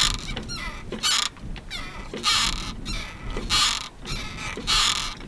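Catalina 30 sailboat's untied boom swinging back and forth as the boat rocks in the swell, creaking with each swing: five creaks a little over a second apart. It is the noise of a boom that has not yet been tied off.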